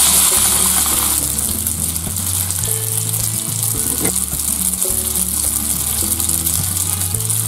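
Spaghetti frying in hot garlic oil in a frying pan: a loud, steady sizzle that jumps up suddenly as the pasta goes in and is stirred with chopsticks, with a short knock about four seconds in.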